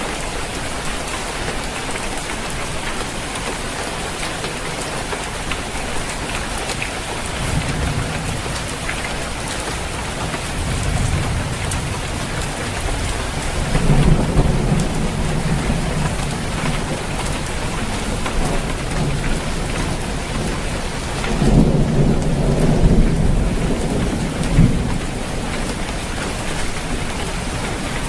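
Steady rain falling on a roof, with rolling thunder rumbling low several times: it builds a quarter of the way in and is loudest about halfway through and again about two-thirds of the way through.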